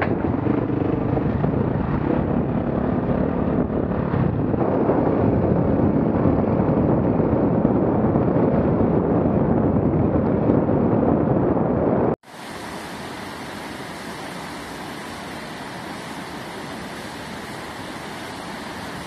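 An off-road vehicle engine running with wind noise on the microphone. About twelve seconds in, it cuts suddenly to the steady rush of river rapids in whitewater, a quieter sound.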